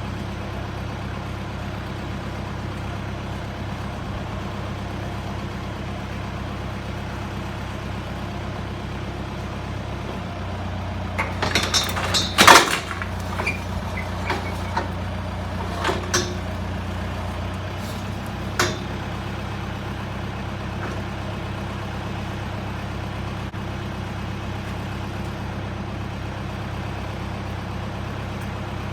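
Tractor engine idling steadily while the round baler's rear gate is opened, its note shifting for several seconds in the middle. A cluster of metal clanks and rattles comes around the same time, the loudest a sharp clang, with a few more after it.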